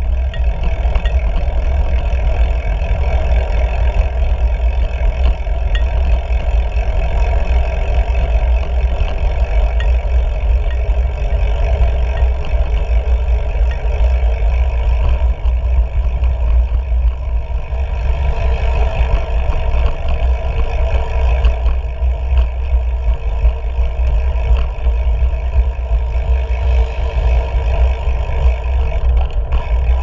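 Steady deep rumble and rushing of wind buffeting and road noise on a camera mounted on a moving bicycle, its tyres rolling over pavement.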